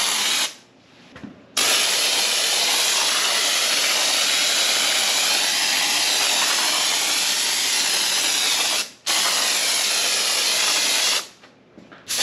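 Spray-foam insulation hissing out of a can through a foam gun while the trigger is held. It stops for about a second near the start, very briefly past the middle, and again near the end.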